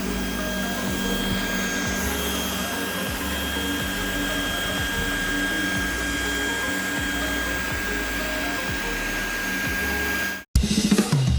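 Steady whir of many cooling fans from running cryptocurrency mining rigs, with a thin high whine held throughout. It cuts off suddenly about ten seconds in, and drum-heavy music starts.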